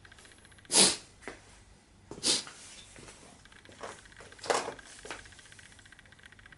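A tablecloth being tugged by a cat in short jerks: three sharp cloth swishes about a second and a half apart, with fainter rustles between them.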